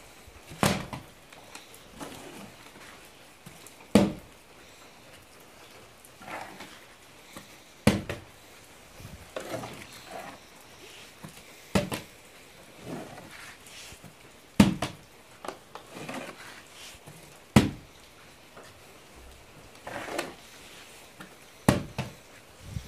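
Plastic water bottle being flipped and landing on wooden boards over and over, a sharp knock about every three to four seconds, seven in all, with softer knocks between.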